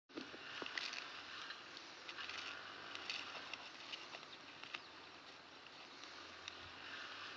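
Faint scattered crackles and ticks over a soft rustle: a small wood fire burning under a green bamboo tube, with dry leaves on the ground being stirred.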